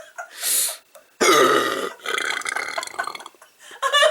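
A combined hiccup and burp from a man with a persistent bout of hiccups: a sudden hiccup about a second in that runs into a belch and fades out. A short breathy sound comes just before it.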